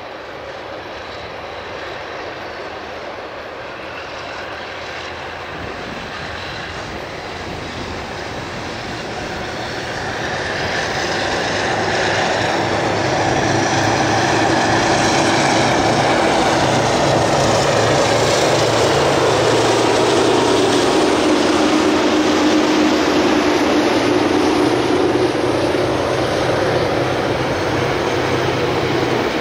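Two DJ class diesel-electric locomotives working hard as they climb a grade with a train, their engines growing much louder about ten seconds in as they draw near, then staying loud; one engine note sinks in pitch a little past the middle as they go by.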